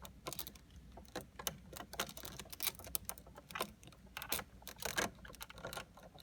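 Irregular light clicks and taps of wire connectors and small parts being handled and plugged in inside a pachislot machine's cabinet.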